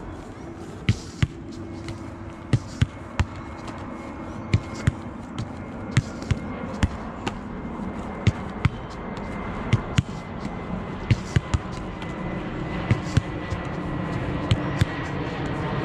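A football being passed against a brick wall: sharp thuds of foot striking ball and ball rebounding off the wall, coming unevenly at about one or two a second.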